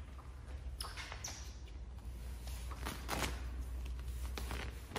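Faint handling noise of a wet sheet of clear paint-protection film: a few short rustles and taps as the film is peeled and laid over a car's side mirror, over a steady low hum.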